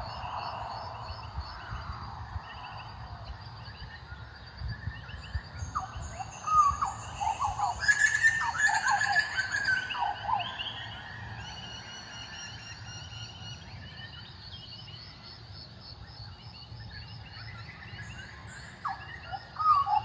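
Butcherbirds calling among a dawn chorus: short fluting, sliding calls, loudest and busiest from about six to ten seconds in. Other birds keep up fast repeated high chirps behind them.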